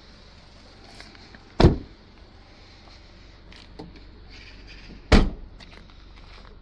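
Two solid thuds from a 2018 Ford Fiesta hatchback being shut: a door closing about one and a half seconds in, then the tailgate closing about three and a half seconds later.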